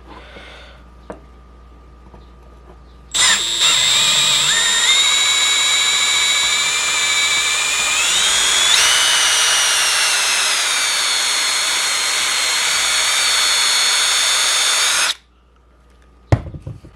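Milwaukee power drill running steadily for about twelve seconds, boring out a bolt hole in a fish-finder mounting piece to 1/4 inch. It starts about three seconds in, its whine rises in pitch twice, and it stops abruptly, followed by a couple of knocks.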